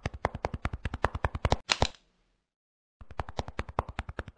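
Rapid run of sharp clicks, about a dozen a second, ended by a louder hissing burst about one and a half seconds in; after a second's pause the clicking starts again.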